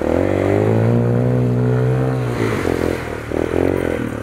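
Kawasaki KLX dirt bike's single-cylinder four-stroke engine revving up and pulling steadily under load through a shallow river crossing, then easing off and running unevenly, with some clatter, about halfway through as the bike climbs out onto gravel.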